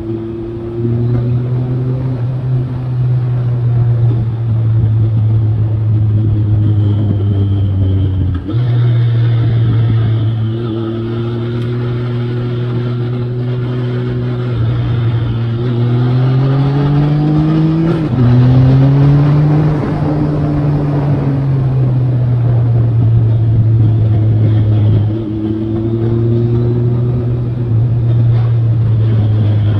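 Triumph Sprint ST 955i's inline three-cylinder engine running at steady revs, then revving up about halfway through, breaking into a quick gear change, and easing back down, with a sudden drop in revs a few seconds before the end. Wind rush over the windscreen runs underneath.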